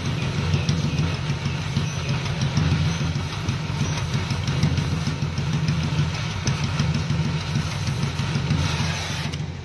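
Oxy-fuel cutting torch hissing and crackling as it cuts through steel under the van, over a steady low rumble. The hiss cuts off suddenly near the end.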